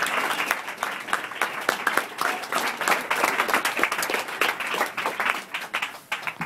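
Audience applauding, many people clapping at once, dying away near the end.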